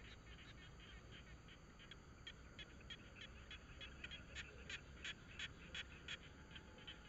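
Faint, rapid animal calls, short and evenly repeated at about three a second, growing a little louder about halfway through, over a low outdoor rumble.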